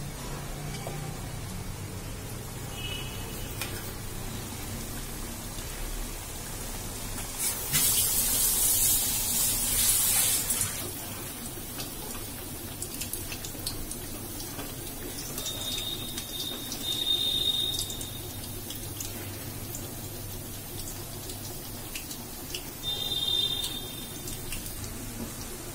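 Battered potato and cauliflower pakoras deep-frying in hot oil in an aluminium kadhai: a steady sizzle and crackle of bubbling oil, swelling to a loud sizzle for about three seconds a third of the way in, with a few shorter swells later.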